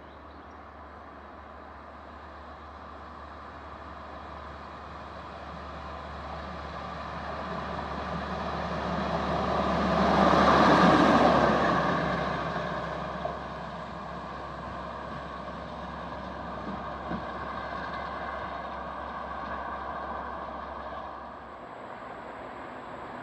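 WM-15Ak rail maintenance motor trolley with a crane passing by: its running noise grows louder as it approaches, is loudest about eleven seconds in, then fades as it moves away.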